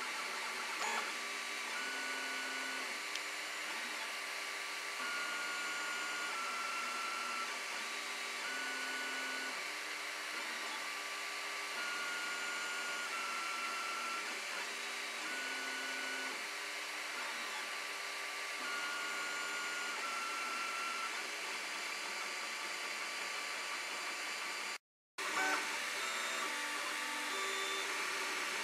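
Ord Bot 3D printer printing its first layer: the stepper motors whine in held tones that jump to a new pitch every second or so as the print head changes moves, over a steady whirring hiss. The sound cuts out for a moment near the end.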